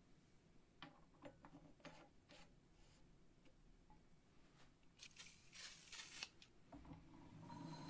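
Faint small clicks of handling, then about five seconds in a few short hisses of an aerosol spray can sprayed onto the drill press's pulley wheel.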